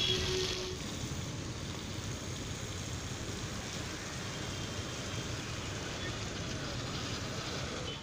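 Steady road traffic noise with a water tanker truck's engine running as it drives off. There is a brief faint tone right at the start.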